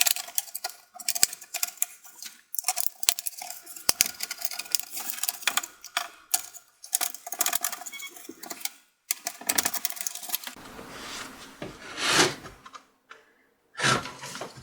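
Guitar pick prying and scraping along the plastic seams of a laptop palm rest, with many sharp plastic clicks and ticks as the clips are worked, and rubbing and scraping in the last few seconds. The panel resists because screws underneath still hold it.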